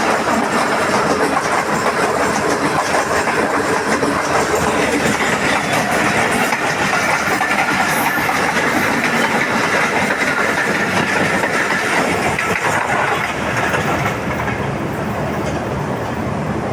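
Pakistan Railways passenger express train running past at speed, its wheels clattering over the rail joints in a loud, steady rush that eases about fourteen seconds in as the train goes by.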